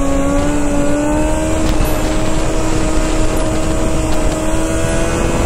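Sport motorcycle engine pulling steadily under throttle, its pitch rising slowly as the bike gains speed, with wind rushing over the microphone.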